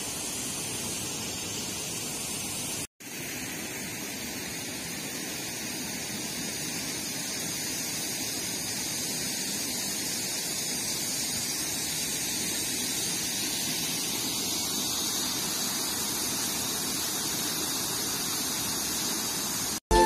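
Steady rush of water from a small cascade spilling into a pond, with a momentary cut-out about three seconds in.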